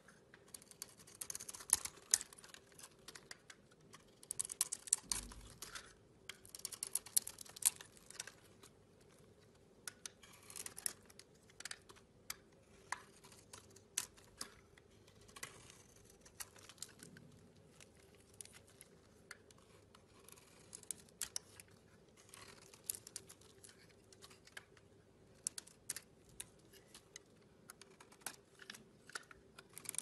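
A utility-knife blade shaving and cutting into a bar of soap, making crisp, crackly scraping in repeated short strokes with brief pauses between, as curls and flakes of soap come away.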